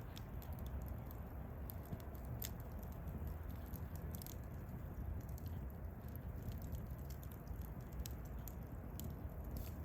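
Wood campfire crackling: irregular sharp pops and snaps of burning wood over a low steady rumble of the flames.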